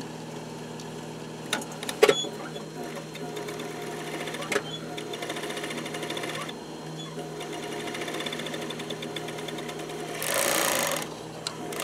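Commercial Yamato overlock (serger) machine running over a steady motor hum, stitching and trimming the edge of the fabric in two runs of a few seconds with a short pause between. Near the end comes a brief, louder rush of noise.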